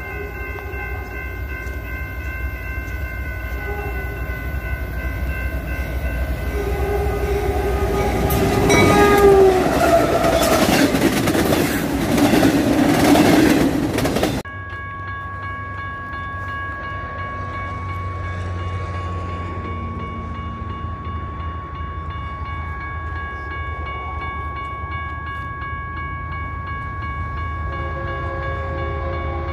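BNSF freight train's diesel locomotive blowing its horn as it approaches at about 60 mph; the horn's pitch drops as it passes, followed by a loud rush of wheels on rail that cuts off abruptly about halfway through. After that, a second train is heard approaching from a distance, with a faint horn near the end.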